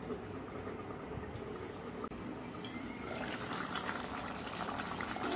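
Fish curry boiling in a kadai: a steady bubbling and sputtering of the gravy, which grows louder and crackly about three seconds in.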